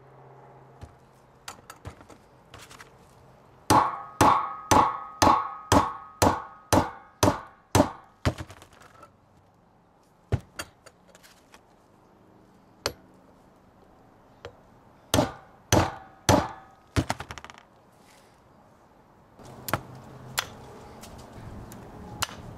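Brass hammer striking the steel yoke of a front axle shaft to drive a new U-joint's bearing caps into place. Two runs of sharp metal-on-metal blows, about two a second, the first of about ten and the second of four, with a ringing note from the shaft. Lighter single knocks fall between the runs and near the end.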